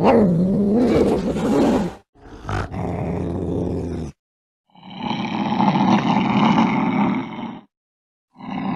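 Domestic cat yowling, heard as three separate clips cut together with dead silence between them; the first yowl dips and then rises in pitch.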